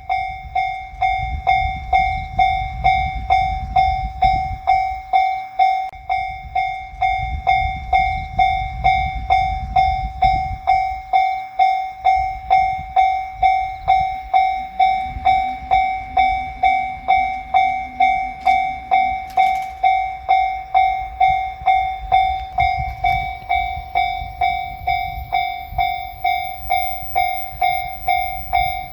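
Japanese railroad crossing warning bell sounding its steady "kan-kan" ring, about two strokes a second, to warn that a train is approaching. A low rumble comes and goes underneath.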